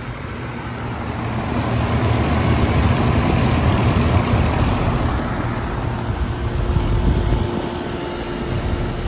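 A 1986 Comfortmaker heat pump's outdoor unit running in cool mode, just after startup: a Bristol compressor hums under the rush of the condenser fan. It swells over the first couple of seconds and then holds steady, and a steady tone joins about two-thirds of the way in. The fan is spinning backwards, throwing air out the sides instead of up.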